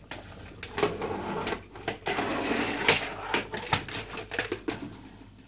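Pressure cooker lid being fitted and turned into place on the pot, metal scraping against the rim with a run of clicks and knocks as the handles are lined up to lock it.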